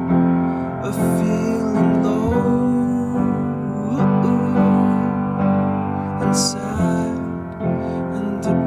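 Music: a slow song in a passage without lyrics, carried by sustained keyboard chords.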